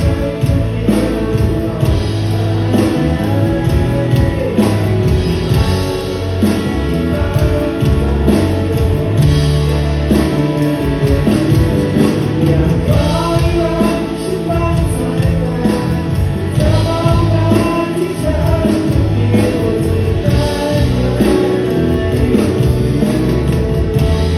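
Live band playing a song, with singing over a full band and a heavy bass line.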